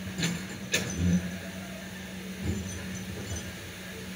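Kobelco hydraulic excavator's diesel engine running with a steady low hum as its bucket digs in the riverbed. Two sharp knocks come within the first second, then low thumps about a second in and again midway.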